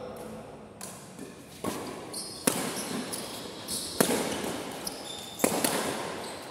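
Badminton rackets hitting the shuttlecock in a rally, about five sharp strikes a second or so apart, each ringing on in the echo of a large hall.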